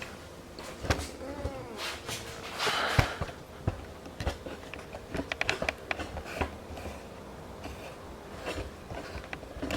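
Scattered small clicks and knocks, with a brief rustle about three seconds in, as a wiring harness is handled and pressed into place along a dirt bike's frame. A faint steady hum runs underneath.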